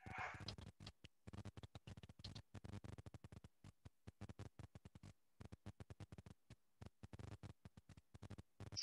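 Near silence, with faint quick clicks of a computer keyboard being typed on and a mouse being clicked.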